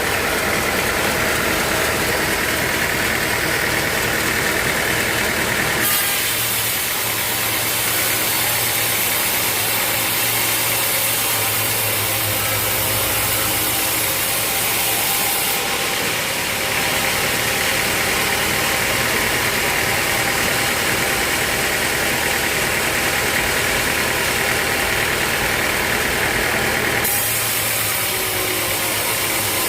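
Sawmill machinery running steadily, an engine-driven drone with a hiss that changes abruptly about six, fifteen and twenty-seven seconds in.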